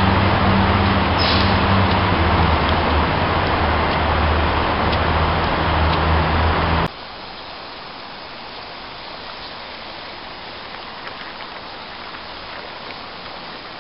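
Loud steady rush of city traffic with a low engine hum under it. About seven seconds in it cuts off suddenly to a much quieter, steady outdoor hiss with a few faint ticks.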